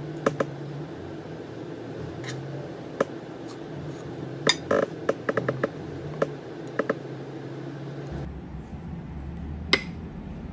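Kitchen utensils clinking and tapping against ceramic and glass dishes while food is served onto tostadas: scattered light clinks, a quick cluster about halfway through and one sharp clink near the end.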